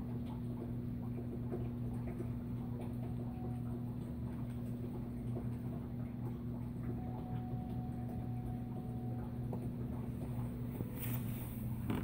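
Consul 16 kg top-load washing machine draining: its drain pump hums steadily while soapy water pours from the drain hose into a plastic basin with a bubbling, splashing patter. Shortly before the end there is a brief rustle as the hose is handled.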